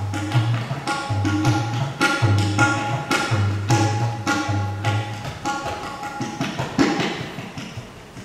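Tabla being played solo: quick strokes on the ringing treble drum over deep bass-drum notes that step up and down in pitch. The bass drops out about five seconds in, leaving sparser, sharper strokes.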